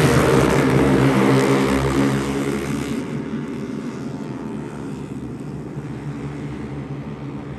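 A motor engine drones loudly, then fades to a lower, steady hum after about three seconds, as if moving away.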